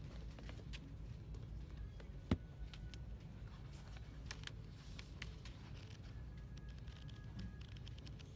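Dollar-store ambience: a steady low hum with scattered light clicks and knocks, and one sharper click about two seconds in.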